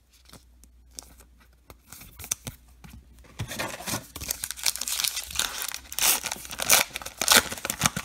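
Baseball card pack wrapper being pulled from the box and torn open, crinkling and tearing in a rapid, dense stream from about three seconds in and loudest near the end. Before that there are only a few soft handling clicks.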